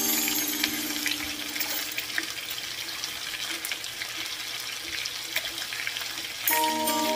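Chicken wings frying in oil in a pan: an even sizzle with scattered small crackles. Background music fades out about a second in and comes back near the end.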